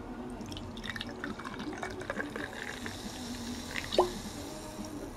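Carbonated ginger ale poured into a glass, splashing and fizzing, then a single sharp knock about four seconds in.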